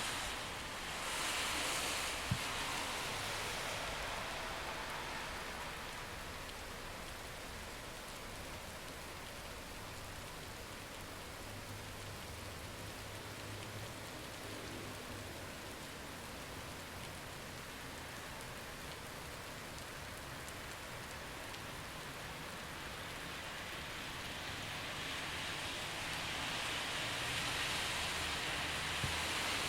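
Steady rain falling on city streets, with the hiss of car tyres on wet road swelling as traffic passes about a second in and again building toward the end. A single sharp click about two seconds in.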